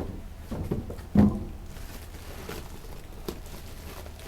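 A few knocks and clicks of parts and tools being handled, the loudest a single thud about a second in, over a low steady hum.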